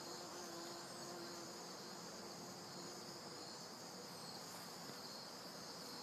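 Steady high-pitched trilling of insects, unbroken throughout, with a faint low hum for roughly the first three seconds.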